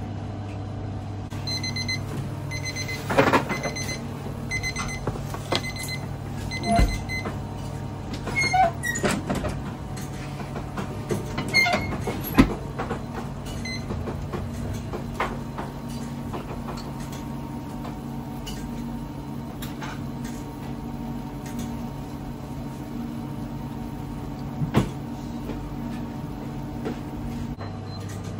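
Commercial bakery kitchen ambience: a steady low machine hum throughout, with an electronic alarm beeping in short repeated bursts for the first several seconds. Occasional knocks and clatters of metal baking sheets being handled break in, the sharpest about 12 seconds in and again near 25 seconds.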